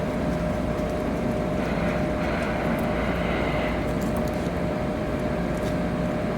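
Steady mechanical hum with a constant whine, and a few faint clicks over it.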